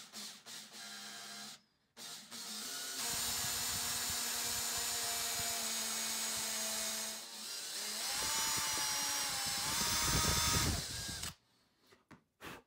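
Electric hand drill boring into the edge of a plywood piece: a short burst, a brief stop, then a long steady run, a short dip and a second run whose whine rises and holds higher, loudest just before it stops about eleven seconds in. A few faint clicks follow.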